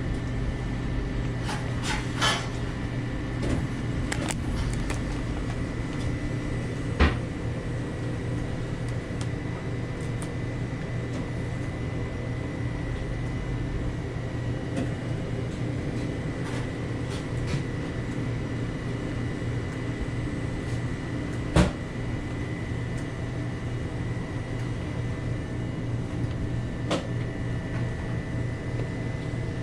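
Steady machine hum with a thin, steady high whine, broken by a few sharp knocks; the two loudest come about seven and twenty-two seconds in.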